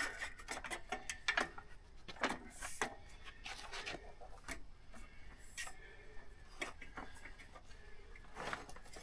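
Folding work table being unfolded and set up: scattered clicks, knocks and rattles from its legs and frame as they are pulled out and locked into place.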